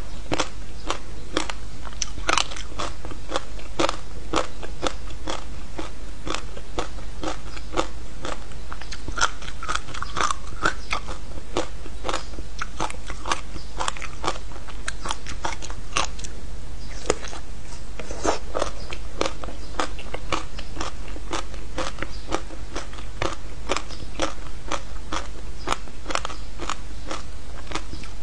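Close-up biting and chewing of frozen passion fruit ice: a continuous run of sharp, crackling crunches, several a second, as the ice breaks up in the mouth.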